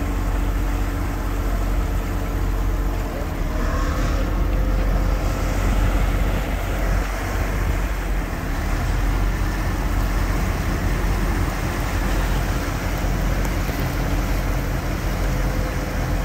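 Steady low rumble of a harbour tugboat's diesel engine working hard to tow a submarine, with the churning of its propeller wash in the water.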